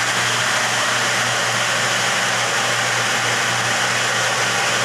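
Electric water pump running steadily, a constant motor hum under a rushing noise, as the repaired pipes are tested under pressure.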